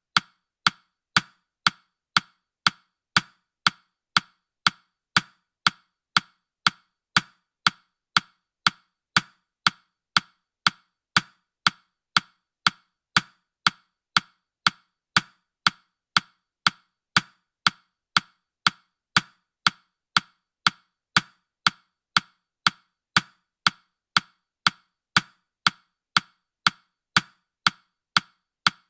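Countdown timer ticking sound effect: short, sharp woody clicks, about two a second, keeping a steady even beat.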